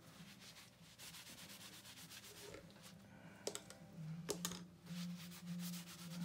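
Quick, repeated rubbing strokes from painting tools worked against a hard surface, with two sharp clicks about three and a half and four and a quarter seconds in. A low hum swells in the last two seconds.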